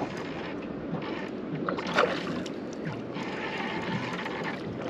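Water lapping and sloshing against a small boat's hull, with a few light knocks and a short louder splash about two seconds in.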